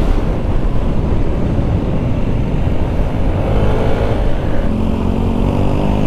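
Wind rushing over the microphone and a motorcycle engine running at road speed. In the second half a steady engine note comes through more clearly, rising slightly as it appears.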